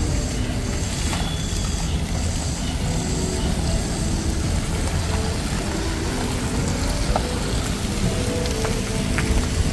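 Steady city street noise, mostly the rumble of passing traffic, with faint music mixed in.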